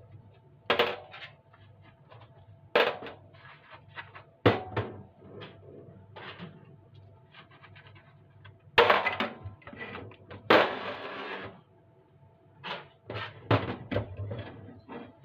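Handling sounds from cleaning a kitchen range hood: separate knocks and clatter of parts being picked up and set down, and two longer rubbing or scrubbing sounds a little past halfway. A faint steady hum sits underneath.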